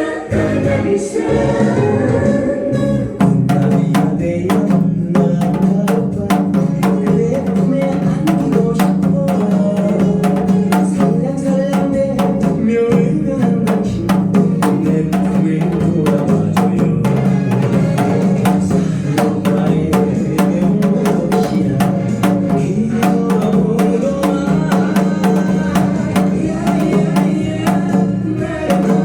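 Janggu, the Korean hourglass drum, struck in quick, regular patterns over a recorded backing song with a singer; the strokes grow dense about three seconds in.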